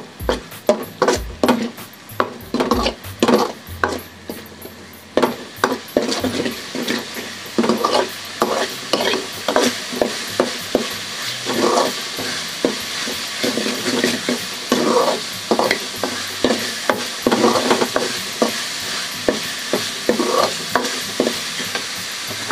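Steel ladle stirring and scraping a thick masala paste around a metal kadai, in repeated strokes about one or two a second, over the sizzle of the paste frying in oil. The sizzle grows steadier and stronger from about seven seconds in.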